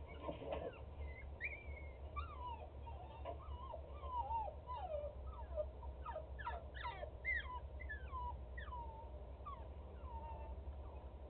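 A dog whining: many short, high whimpers, each sliding down in pitch, coming in quick irregular runs.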